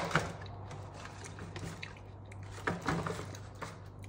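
Quiet room with a low steady hum, broken by a few faint clicks and a small knock about three seconds in.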